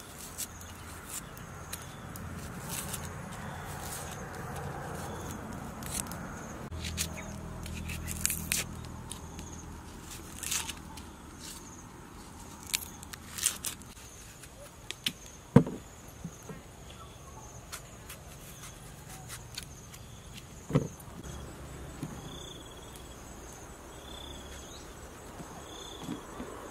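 Small knife clicking and scraping as shallots are peeled and small yellow fruit trimmed over a wooden cutting board, in scattered short clicks with two louder knocks, about halfway through and again five seconds later. Insects chirp faintly and steadily in the background.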